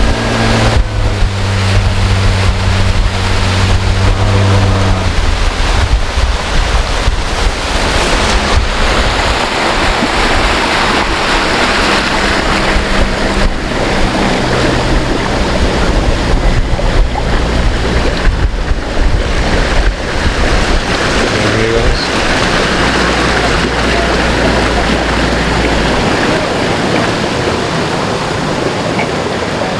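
Outboard motor of a small open boat running at speed, with water rushing along the hull and wind on the microphone. The engine's steady drone is clearest for the first five seconds or so, after which the rush of water and wind covers most of it.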